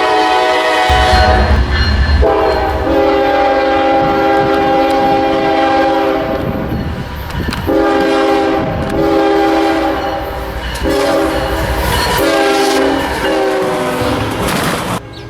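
Diesel locomotive air horn on a CSX coal train sounding the grade-crossing signal. A blast that ends about a second in is followed by a long blast, another long one, a short one and a final long one, over the rumble of the approaching train.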